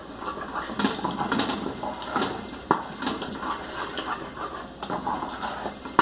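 Wooden spoon stirring a thick, boiling banana sweet in a metal pot, scraping along the bottom, with a couple of sharp knocks against the pot.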